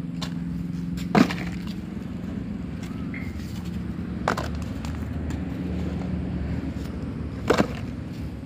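Hard plastic toys knocking as they are dropped into a plastic basket and set down on the ground: three short clacks, about a second in, a little after four seconds and near the end, over a steady low hum.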